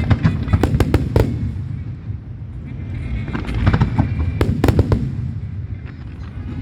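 Aerial fireworks bursting: a rapid volley of sharp cracks in the first second or so and another around the middle, over a continuous low rumble of booms.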